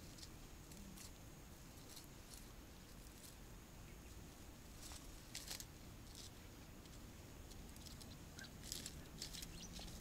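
Near silence: a faint steady background hiss with scattered short, high-pitched ticks, more of them in the last couple of seconds.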